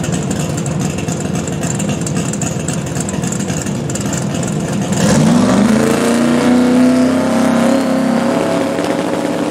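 Twin-turbo V8 drag car engine idling, then about five seconds in revving up and holding at a higher, steady rpm on the start line, just before launch.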